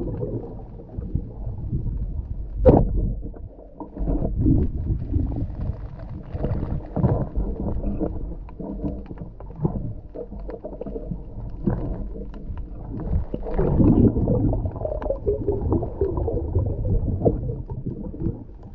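Muffled underwater sound picked up through a GoPro camera's waterproof housing: an uneven low rumble of water moving around the swimming diver, with scattered clicks and knocks and one sharp knock about three seconds in.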